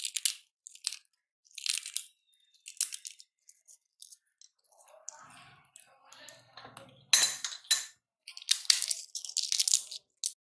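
Crisp fried papdi crackers being crushed and crumbled by hand, a string of short crunching crackles, loudest about seven to nine seconds in.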